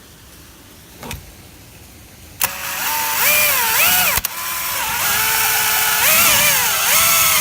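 Power drill driving a long drill bit through a wall, starting about two and a half seconds in; the motor's whine rises and falls in pitch as the trigger speed changes, with a short break just after four seconds.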